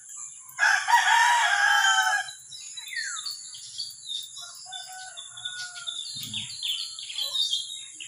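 A rooster crows once, loud, starting about half a second in and lasting under two seconds. Small birds chirp and twitter with short high calls and falling whistles through the rest.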